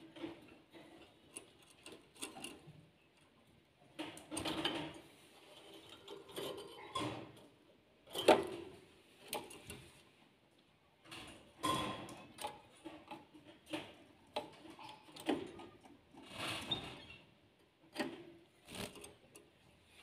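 Canaries pecking at broccoli and moving about a wire cage: irregular soft clicks, scratches and rustles, with a sharper knock about eight seconds in.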